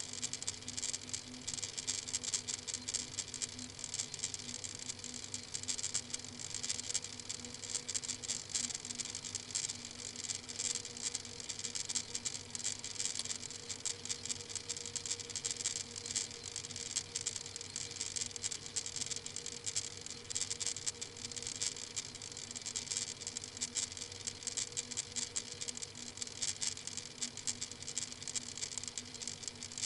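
Steady crackling hiss with a low, even electrical hum underneath: background noise from a live webcam's microphone.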